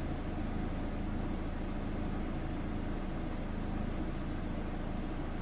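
Peugeot car engine idling steadily, heard from inside the cabin, with its AL4 automatic gearbox engaged in reverse to warm the transmission oil.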